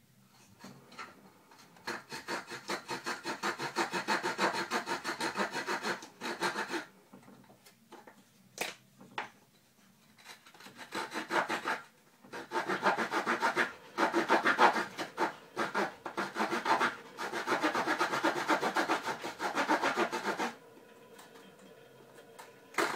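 Small folding saw blade of a Victorinox Farmer pocket knife sawing a notch into soft sapling wood in quick, even back-and-forth strokes. It comes in two bouts with a pause of a few seconds between.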